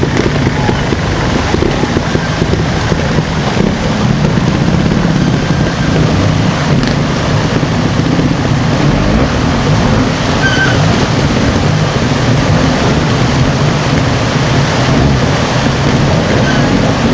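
Trials motorcycle engine running as the bike is ridden slowly through a rocky stream section, over the steady rush of fast-flowing stream water.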